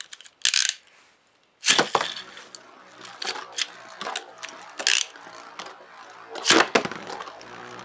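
Two metal Beyblade spinning tops are launched into a clear plastic stadium with ripcord launchers: a sharp zip and clack about two seconds in and again near the end. In between, the first top spins and clicks against the plastic bowl, with a faint steady whir. A short rasp comes just before the first launch.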